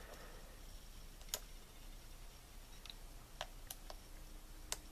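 Faint, scattered small clicks of a lock pick working the pins inside a lock cylinder: about six ticks, the sharpest about a second in and near the end, with a quick cluster between them.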